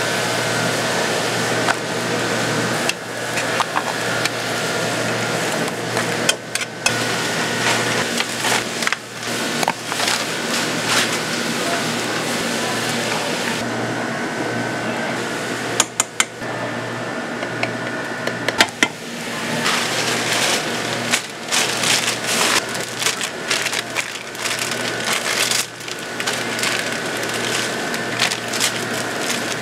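Street-food stall kitchen noise: a steady hum running under irregular clatter and sharp knocks of utensils and cookware, with voices in the background.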